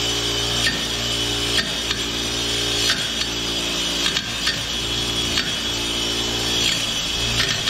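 Bench grinder running with a carbide stump grinder tooth (1100-series green tooth) held against the spinning wheel: a steady motor hum under a grinding hiss, with short scrapes about once a second as the tooth is pressed and turned.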